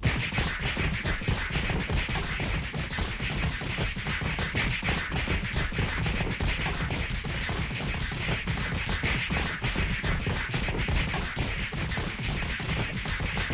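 Sustained rapid gunfire sound effect: a dense, unbroken rattle of many overlapping sharp bangs that starts abruptly.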